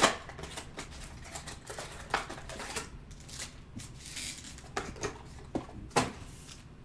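Hands handling a trading-card box and setting plastic-wrapped card packs down in stacks on a table: light crinkling of wrappers with several sharp taps, the loudest right at the start and another about six seconds in.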